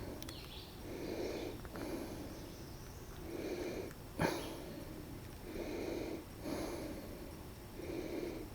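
A man breathing heavily and audibly in and out, in soft puffs about every half-second to a second, with one sharp click about four seconds in.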